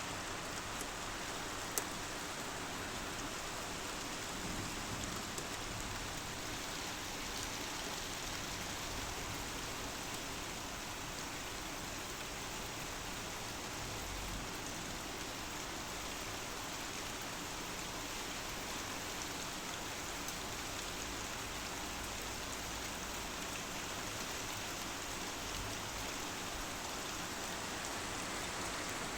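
Steady rain falling on surfaces, an even hiss with no break, with one sharp tick about two seconds in.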